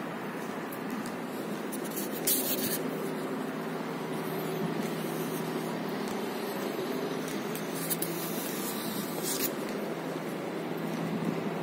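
Steady background hum and hiss of an indoor space, with brief bursts of hissing noise about two seconds in and again around eight to nine seconds.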